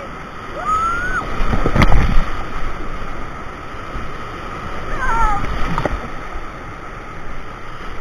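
Whitewater rapids rushing loudly around a paddled raft, with paddle strokes splashing into the water; a heavy splash hits about two seconds in, and another, smaller one comes near six seconds. Brief shouts from the rafters come about a second in and again around five seconds.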